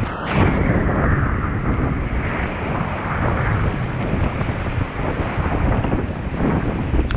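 Heavy wind buffeting on the microphone over rushing river water, a loud, continuous rumbling noise.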